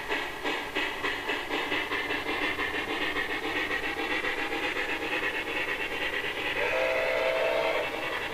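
HO-scale model steam locomotive's sound unit chuffing in an even beat that quickens and runs together, with the freight train rolling on the track. Near the end a two-tone whistle sounds for about a second.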